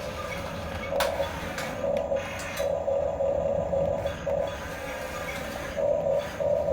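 Small electric drive motors and plastic gearboxes of Huina RC construction models whining in on-and-off bursts as they are driven, with a few sharp clicks.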